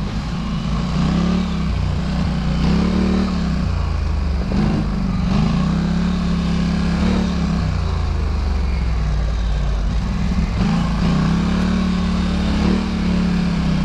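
Off-road vehicle engine pulling at low speed, its note rising and falling again and again as the throttle is opened and eased off.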